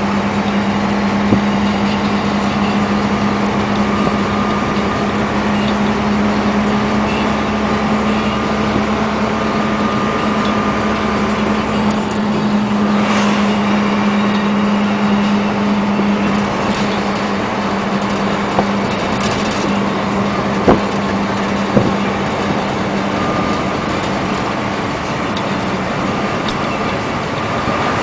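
Heavy diesel truck engine running steadily with a low hum, with a few short sharp knocks about three quarters of the way through.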